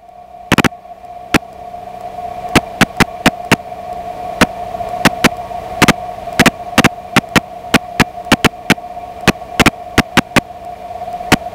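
Steady electrical hum with frequent, irregular loud clicks and crackles of static on the aircraft's intercom and radio audio feed.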